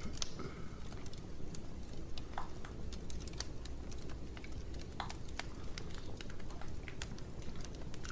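Close-miked crunchy eating sounds of fried chicken: irregular crisp clicks and crunches, over a low steady hum.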